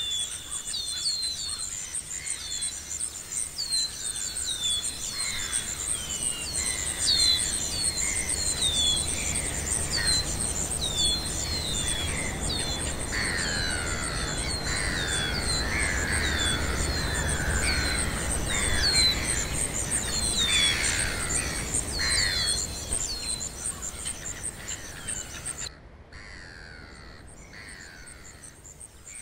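Outdoor nature ambience: birds calling in many short, quick, falling chirps over a steady high pulsing insect trill and a low rumble. Near the end the trill stops and the whole ambience drops much quieter.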